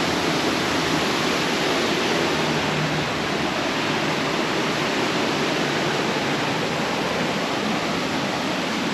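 Steady, loud rush of a waterfall's falling water, an even roar with no breaks.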